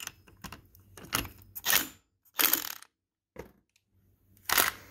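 Cordless impact driver running down the centre bolt of a pull-starter drive plate in several short hammering bursts, the last near the end.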